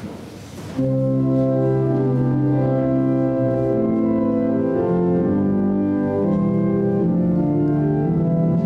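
Organ playing the introduction to a hymn in sustained chords, which start about a second in and move from chord to chord.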